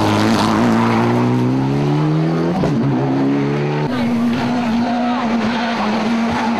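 Rally car engines at high revs: a Mitsubishi Lancer rally car sliding through a corner on a dusty road, its engine note held high and drifting slightly in pitch. About four seconds in the sound cuts to a Škoda Fabia rally car approaching with a steady high engine note.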